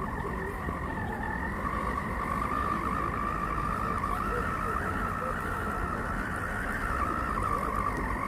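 Electric motor and gearbox of an RC scale crawler truck whining steadily as it drives, the pitch wavering slightly, over a low rumble.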